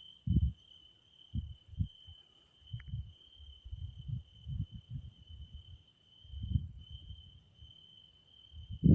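Crickets trilling in a steady, high, continuous chorus, with a fainter, even higher shrill band above it. Irregular dull low thumps come and go throughout, the loudest at the very end and louder than the crickets.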